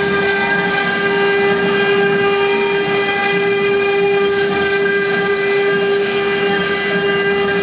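Desktop CNC router's spindle whining at a steady pitch while a fine engraving bit mills a relief into a wooden board, with the hiss of the bit cutting wood underneath.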